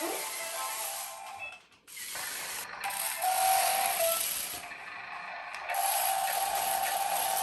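Small RC stunt car's electric drive motors and gears whirring with a steady whine as it drives, cutting out briefly about two seconds in and starting again.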